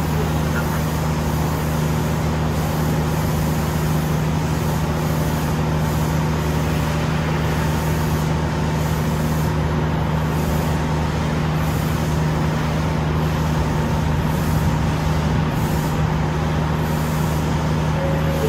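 KiHa 66 diesel railcar engine idling while the train stands at the platform: a steady, even-pitched deep hum that does not change.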